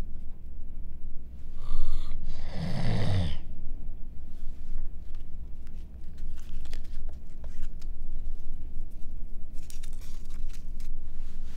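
Close-up gum chewing: irregular wet smacks and clicks, with a brief low-pitched throaty sound about two and a half seconds in.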